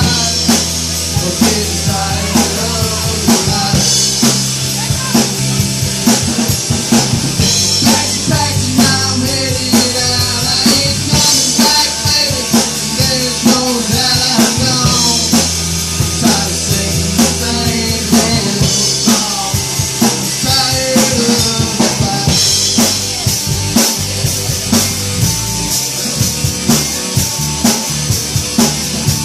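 Live band playing an instrumental passage of a song: a drum kit keeps a steady beat under bass and a melodic lead line, with no singing.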